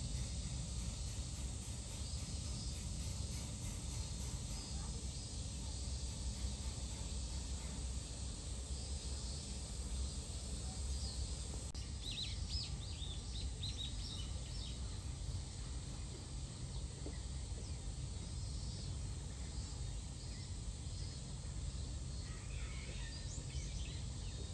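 Steady outdoor background noise, mostly a low rumble, with a brief run of faint high chirps about halfway through.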